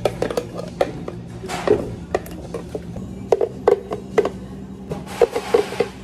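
Thick blended frappe being emptied from a plastic blender jar into a cup: repeated soft knocks and scrapes as a spatula works it out of the jar, over light background music.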